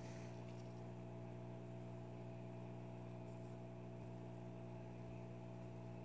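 A steady low hum, unchanging, with faint hiss above it.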